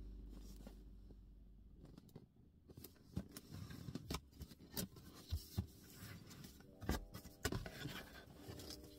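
A low held tone fading away over the first two seconds, then scattered light clicks, taps and scratchy rubbing of small objects being handled close by.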